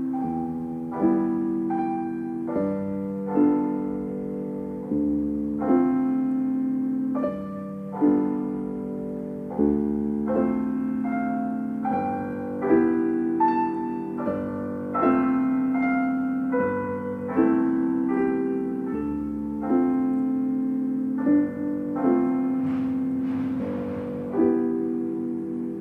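Background music: a slow piano piece of held chords, a new chord struck about once a second.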